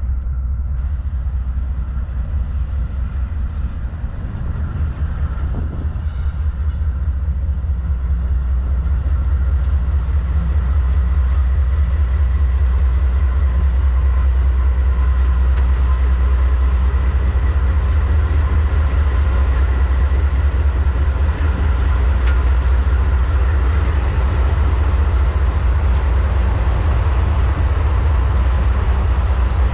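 CSX freight train passing close by: several diesel locomotives running with a heavy, steady low rumble over the noise of the cars rolling on the rails. The sound grows louder from about eight seconds in as the locomotives draw near.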